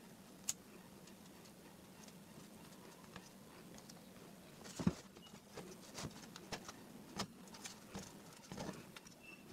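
Handling noise: light scattered clicks and taps as fingers move a small circuit board and its wires about on a hard surface. There is a louder knock about five seconds in and a faint steady hum underneath.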